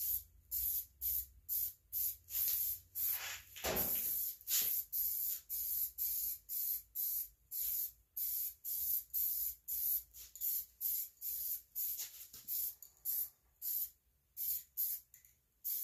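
Aerosol spray paint can hissing in short, quick bursts, about two a second.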